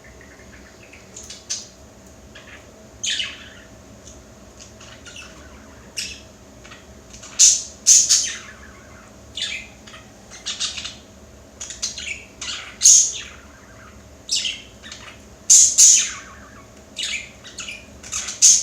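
Pet budgerigar chirping and squawking at its own reflection in a mirror: a run of short, sharp, high calls at an uneven pace, some falling in pitch, with the loudest squawks coming in clusters from about 7 seconds on.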